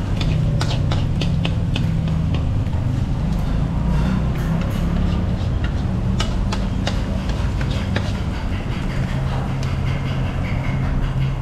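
A metal spatula and ladle repeatedly clacking and scraping against a steel wok as noodles are stir-fried, the strikes coming thick in the first half and thinning out toward the end, over a steady low hum.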